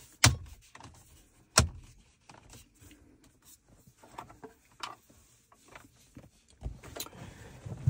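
Handling noise from a car's centre-console trim and a charging cable being routed through it: two sharp knocks on the plastic trim in the first two seconds, then light clicks and cable rustling, with a low rubbing rumble near the end.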